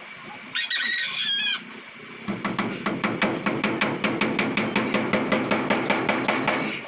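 A rooster crows once, then a hammer taps rapidly and evenly, about five or six blows a second for some four seconds, driving nails to fix a wooden pigeon widowhood box to the wall.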